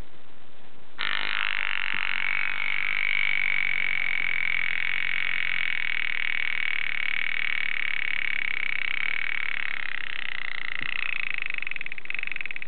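Wind-up alarm of a 1920s Hamburg American Clock Company (HAU) alarm clock going off about a second in: the hammer rattles rapidly against the bell in a loud, steady ring lasting about eleven seconds, breaking up near the end.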